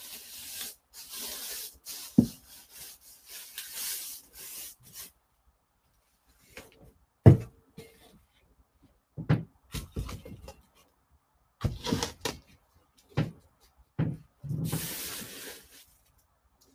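Dry bath-bomb mixture (baking soda and citric acid powder) scraped and rubbed across the paper-covered table and gathered into the molds: a run of gritty rustling scrapes, then several sharp knocks as a bowl and mold halves are set down and handled, with another short stretch of scraping near the end.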